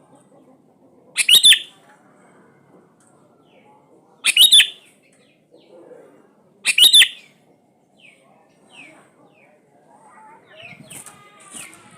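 Sooty-headed bulbul (kutilang) calling: three loud, short, high bursts about every two and a half seconds, with faint short descending chirps in between.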